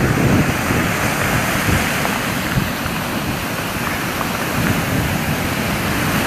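Rough post-storm surf: waves breaking and washing on the shore in a steady, continuous rush.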